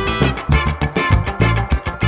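Music with a heavy, regular bass beat.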